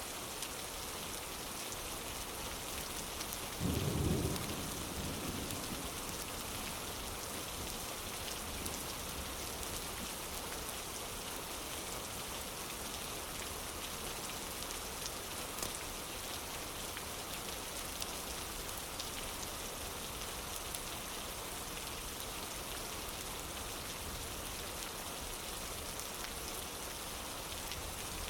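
Steady rain falling, an even hiss, with one short low rumble of thunder about four seconds in.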